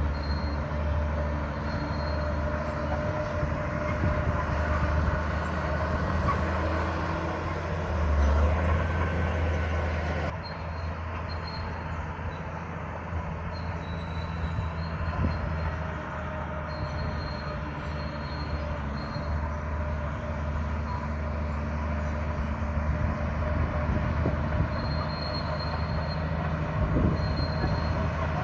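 Komatsu crawler bulldozer's diesel engine running steadily, with short high squeals from its steel tracks.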